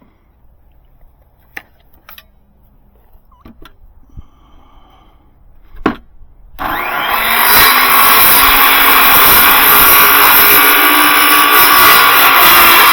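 A few light knocks and clicks, then about six and a half seconds in an electric power saw starts up, its whine rising as the motor spins up, and runs loud and steady while cutting a wooden fence picket to length.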